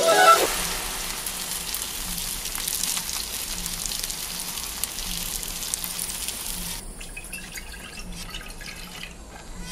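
Chicken wings and a parmesan cheese crust sizzling in oil in a frying pan, a steady hiss as the cheese crisps. About seven seconds in it cuts to chicken stock being poured into a steel saucepan, a quieter trickle.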